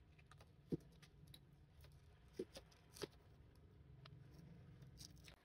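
Screwdriver twisting steel tie wire tight around a PVC pipe: faint scraping with three sharper clicks of wire and metal against the plastic.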